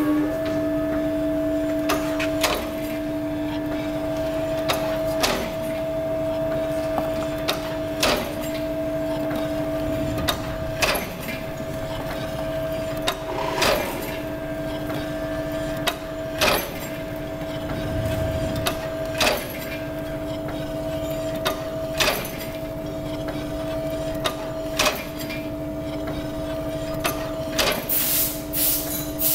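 THP-30 flower-basket tablet press switched on: its electric motor starts with a steady hum. The punch comes down with a sharp knock about once every three seconds as it presses large 55 mm tablets. A hiss rises near the end.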